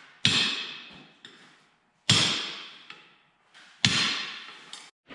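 Three hard metal-on-metal blows, about two seconds apart, each ringing for about a second: a new bearing being driven into place on a round-baler roller.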